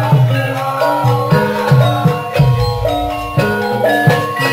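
Javanese gamelan music for a lengger dance: metallophones ringing steady notes over repeated drum strokes that drop in pitch after each hit, several a second.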